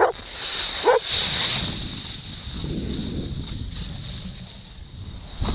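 Wind rushing over the action camera's microphone as a snowboard slides over the snow, with two short cries in the first second.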